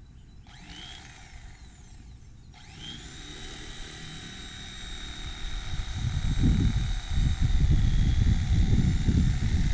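Corded Mister Twister electric fillet knife running while skinning a catfish fillet: its motor whines up, stops briefly, then starts again and runs steadily. A heavy low rumble comes in about six seconds in and becomes the loudest sound.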